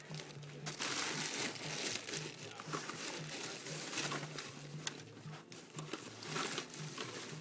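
Irregular rustling and crinkling close to the microphone, with scattered short crackles, as a hooked channel catfish is handled to get the hook out.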